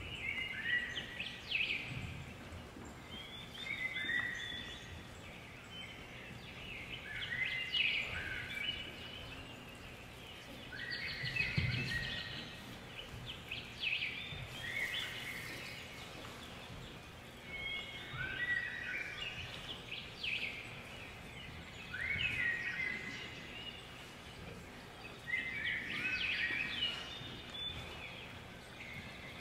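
Birds chirping in repeated bursts, each a cluster of quick calls falling in pitch, coming every three to four seconds over a steady background hiss.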